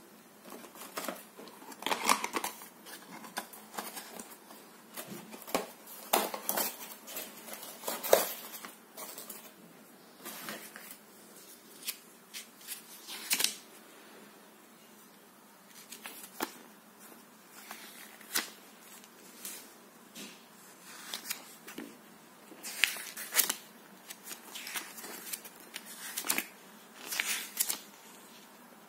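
Irregular rustling and light clicks of hands handling small parts and a paper instruction leaflet, unfolding it and turning its pages.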